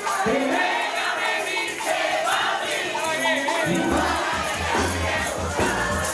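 A crowd singing along with a lead singer to live plena music, over steady hand percussion, with a heavy low beat coming in about two-thirds of the way through.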